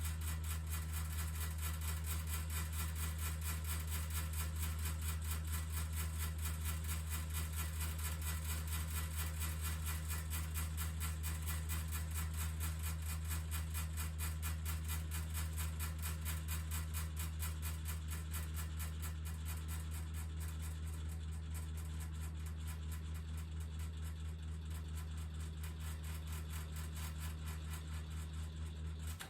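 Small 12 V DC ceiling fan running on a universal AC power adapter: a steady low motor hum with a fast, even pulsing hiss over it, cutting off suddenly at the end.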